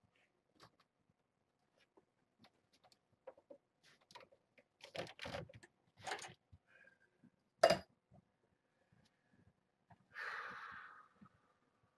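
Scattered light knocks and clatter, with one sharp knock a little past the middle and a scraping rustle lasting about a second near the end, from a cat's food dish and litter box being tended.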